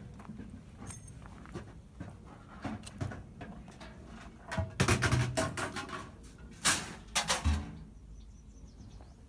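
A husky nosing through scrap metal and gravel: scattered rustles, knocks and sniffing noises, with two louder clusters of short noisy bursts about halfway through and again a couple of seconds later.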